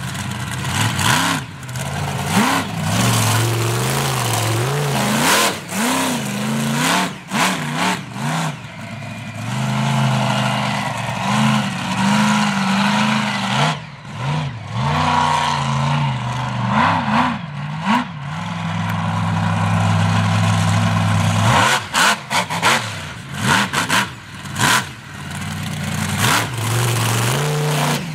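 Monster truck engine revving hard, its pitch climbing and falling with the throttle. A few stretches are held steady at high revs, and several sharp off-throttle breaks come near the middle and toward the end.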